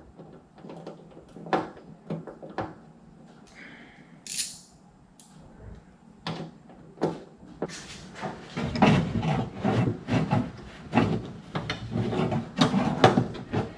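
Metal wiper linkage knocking, scraping and rattling against the car's sheet-metal cowl as it is worked into place and lined up with its mounting holes. A few scattered knocks at first, then denser clattering and rubbing from about eight seconds in.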